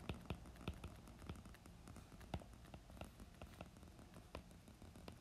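Faint, irregular small clicks and taps of a stylus tip writing on a tablet's glass screen.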